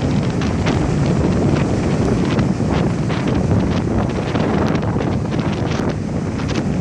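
Strong wind buffeting the microphone: a steady loud rumble broken by frequent crackles as the gusts hit.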